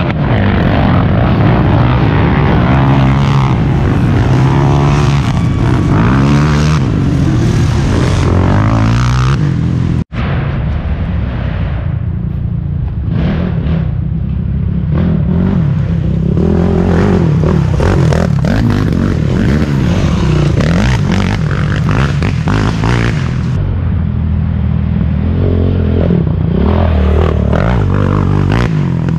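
Racing quad engines revving hard, the pitch rising and falling again and again as they accelerate and shift. The sound breaks off for an instant about ten seconds in, then carries on.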